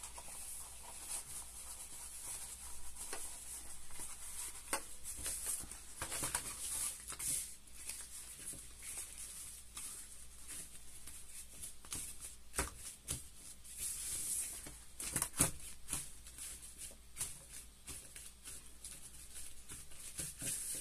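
Thin nylon raincoat fabric rustling and swishing irregularly as it is pulled through to turn it right side out and smoothed flat by hand on a table.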